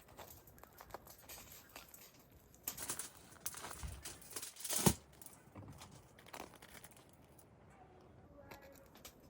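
Rustling and crinkling handling noises with small clicks, busiest from about three to five seconds in, where a single louder knock stands out.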